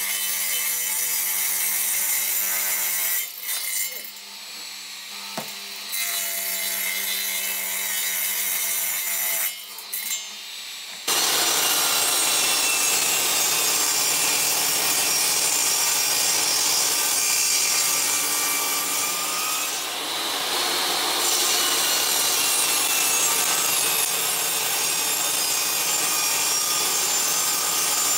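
A radial arm saw with a 10-inch blade crosscuts a hardwood board, its motor giving a steady whine that dips in level twice. About eleven seconds in this gives way abruptly to a table saw ripping a laminated hardwood cutting-board blank: a louder, even cutting noise that runs on steadily.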